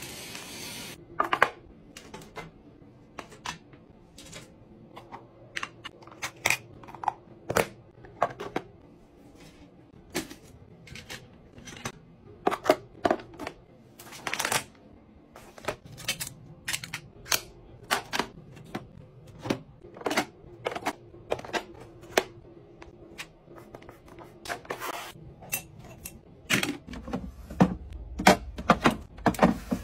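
Plastic toiletry bottles and packets being handled and set down in a metal shower caddy and clear acrylic drawer organizers: irregular clicks, taps and knocks, a few every second.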